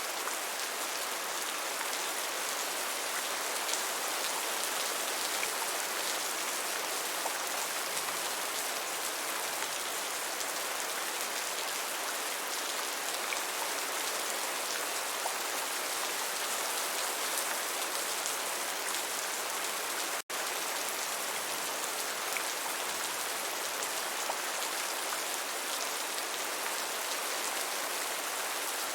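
Steady rain, an even hiss of many small drops falling. The sound cuts out for a split second about two-thirds of the way through.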